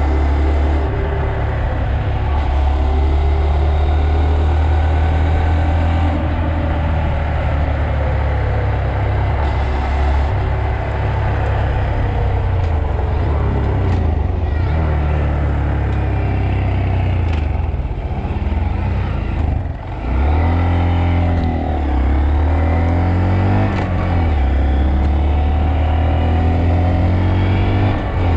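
Honda Monkey's single-cylinder four-stroke engine running under way at a steady cruise. About two-thirds through the engine note dips briefly as the throttle comes off, then rises and falls a few times before settling back to a steady pull.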